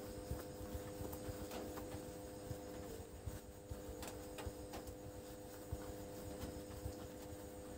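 Faint room tone with a steady hum, broken by scattered soft clicks and light taps.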